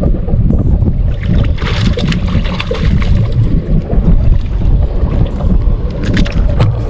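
Loud, uneven low rumble of wind buffeting the microphone along with water noise on a fishing boat out on the water.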